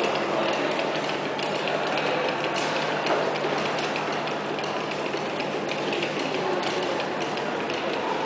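Quick, overlapping knocks and clacks of office stamps striking paper on a desk, mixed with paper being handled, heard through the speakers of a video installation in a gallery room.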